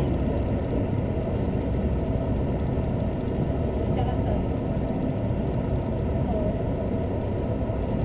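Steady running noise of a diesel limited express train, heard from inside the passenger car: an even low rumble and hum from the moving train.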